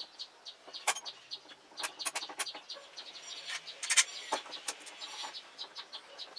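Small bird chirping over and over in quick, high notes, with a few sharp knocks, the loudest about four seconds in.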